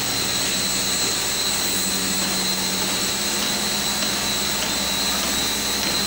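Electric pump motors of a reverse-osmosis water plant running steadily: an even hum and hiss with a constant high whine.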